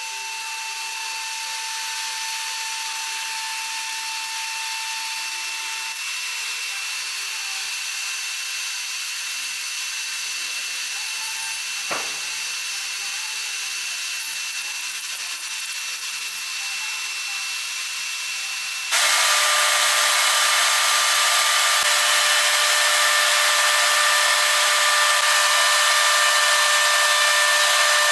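Router spindle of a Leehyun Multiwood Machine running with a steady high whine, with a single knock about twelve seconds in. From about nineteen seconds in it gets suddenly louder and sharper as the router bit cuts a groove into a pine board.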